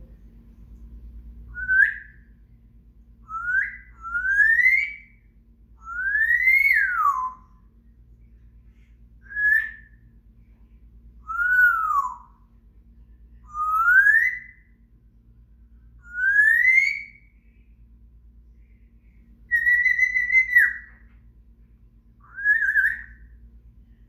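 African grey parrot whistling: about ten separate whistled notes, roughly one every two seconds, most sliding upward in pitch, a few rising then falling, and one held level near the end.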